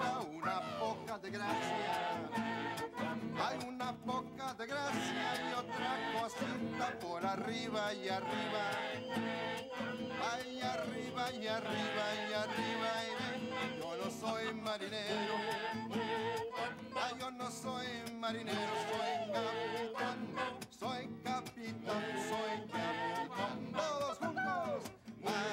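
Music: a song on a nylon-string classical guitar, sung by a man with a chorus of puppet animal voices singing along.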